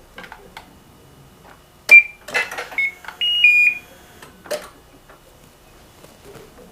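A sharp click about two seconds in, then several clicks and short high electronic beeps, one a held tone that steps down in pitch, from a Honda Gold Wing's switches and electronics being switched on to test a newly plugged-in LED light.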